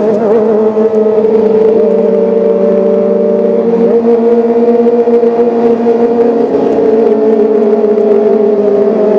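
Kawasaki Ninja ZX-25R's 249 cc inline-four engine running at a high, nearly steady pitch, wavering slightly.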